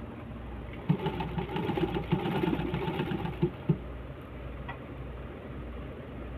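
Black Singer sewing machine stitching in one run of about three seconds, a rapid needle clatter ending in two sharp clicks. A single light tick follows a second later.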